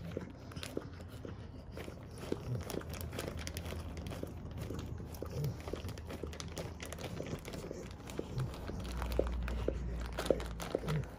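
An American Pit Bull Terrier licking peanut butter off a plastic bag, the plastic crinkling with irregular small clicks under her tongue. A brief low rumble comes near the end.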